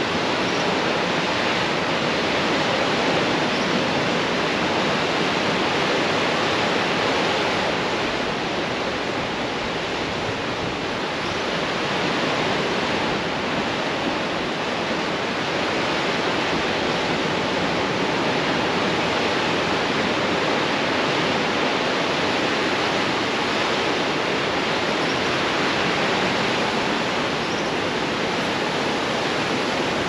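Sea surf breaking and washing over a rocky, stony shore: a steady rushing wash that eases slightly partway through.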